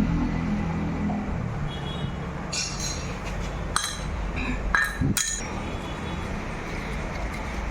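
About four sharp metallic clinks of hand tools and metal parts being handled, a little over a second apart, over a steady low background hum.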